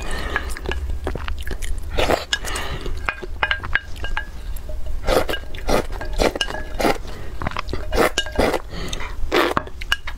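Close-miked eating sounds: wet chewing, lip smacks and slurping of soft food and broth from a glass bowl, with a run of sharp clicks and a wooden spoon against the glass. A steady low hum sits underneath.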